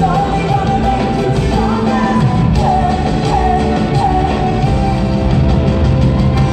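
Live pop-rock band playing in an arena, heard from the audience seats, with a woman singing lead in sliding, bending runs over the full band.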